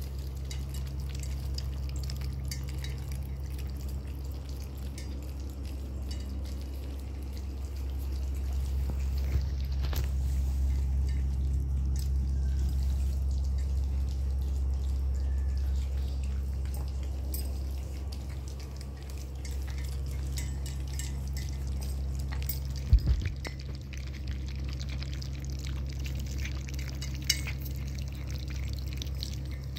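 Puppies lapping and slurping wet food from a shared dish, a dense patter of small wet clicks over a steady low hum, with a sharp knock about two-thirds of the way through.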